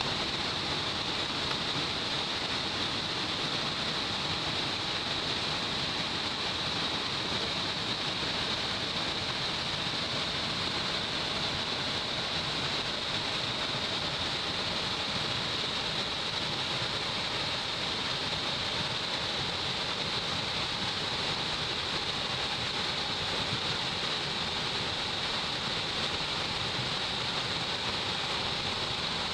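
Waterfall on a mountain stream: water falling and splashing in a steady, unbroken rush.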